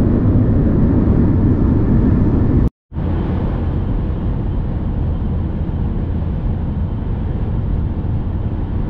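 Steady road and engine noise inside a car's cabin at motorway speed. It drops out to silence for a moment about three seconds in, then carries on a little quieter.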